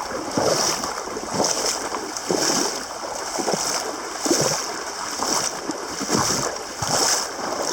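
Wading through shallow river water, with a splash about once a second as each step goes in.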